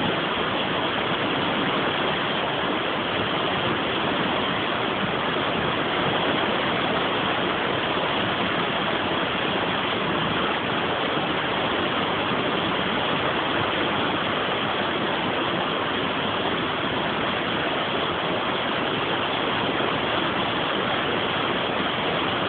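Water rushing steadily over a river weir, a constant even noise with no breaks.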